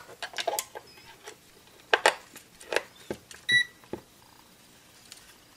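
AA batteries being fitted into a digital multimeter's spring-contact battery compartment: a run of sharp plastic-and-metal clicks and knocks, one with a short high ring about three and a half seconds in.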